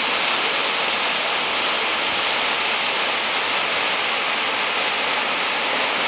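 Tall waterfall pouring, a steady, even rush of falling water.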